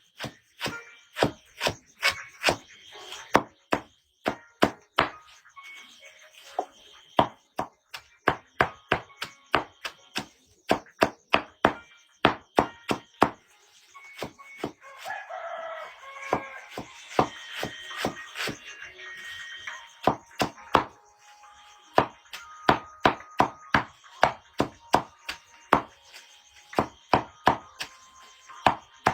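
Knife chopping pig feed on a board in quick, even strokes, about two a second, pausing briefly around the middle.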